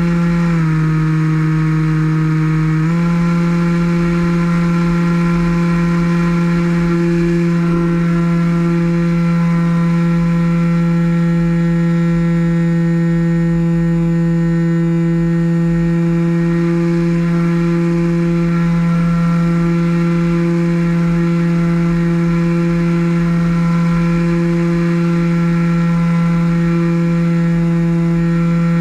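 RC model plane's motor and propeller running steadily, heard from on board. Its pitch dips briefly about half a second in as the throttle is eased, and comes back up about three seconds in.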